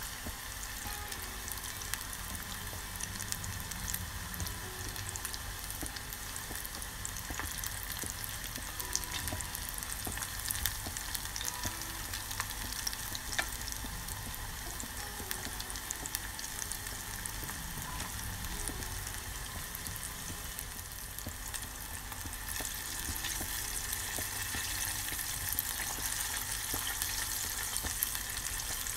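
Breaded chicken feet skins deep-frying in hot oil in a pot: a steady, dense sizzle full of small pops and crackles, growing a little louder about three quarters of the way in.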